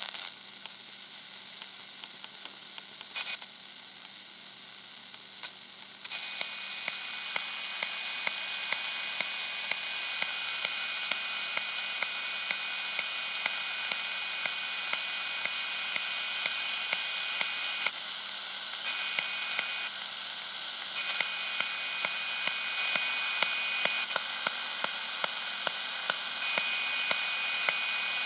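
Radio receiver tuned across the VHF airband giving open static hiss with no signal. The hiss jumps louder about six seconds in, with a faint steady whine and light clicks about twice a second.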